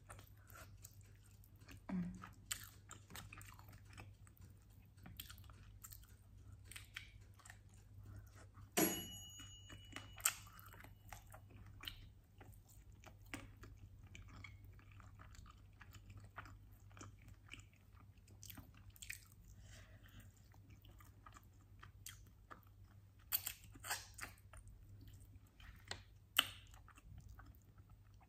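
Chewing and biting on sauced chicken wings, gnawing the meat off the bones, with many small wet mouth clicks and a few sharper crunches; the loudest is a sharp click about nine seconds in.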